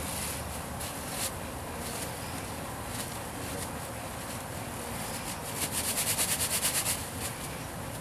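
Honeybees buzzing steadily around a colony disturbed as its comb is opened up in a wall cavity. About six seconds in there is a rapid rattle, about ten pulses a second, lasting roughly a second and a half.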